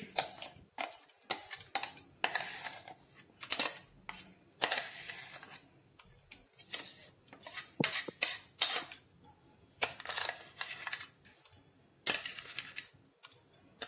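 A metal spoon scraping and knocking inside a stainless-steel mixer-grinder jar as thick ground chana dal paste is scooped out. The sound is an irregular run of short scrapes and clinks.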